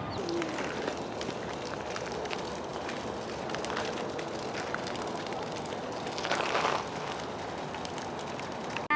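Steady outdoor background noise, with a brief louder swell about six seconds in.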